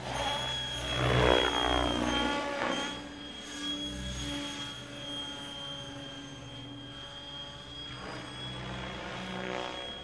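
Electric Mikado Logo 600 RC helicopter flying: rotor noise with a steady high motor whine, loudest as it passes close about a second in and with pitch sweeping as it manoeuvres, then fainter as it climbs away.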